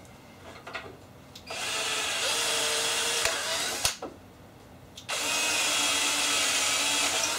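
Power drill running in two bursts of about two seconds each. The bit is spinning into wood through a template just far enough to mark the hole positions.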